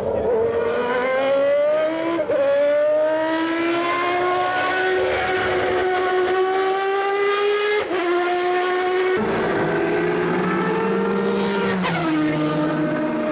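Toyota TS010's 3.5-litre V10 race engine running at high revs, its pitch climbing through the gears with upshifts about two seconds and eight seconds in, then dropping sharply near the end.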